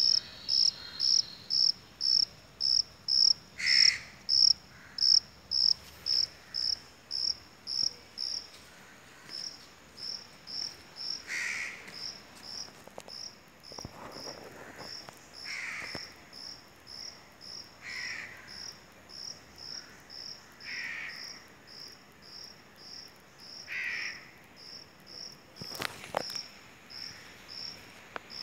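An insect chirping in an even rhythm of short high pulses, about three a second, loud for the first several seconds and fainter after. A few short, lower calls come every few seconds, and there is a sharp click near the end.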